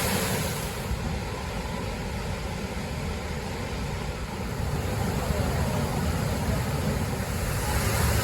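Waterfall rushing: a steady roar of falling water that grows slightly louder near the end.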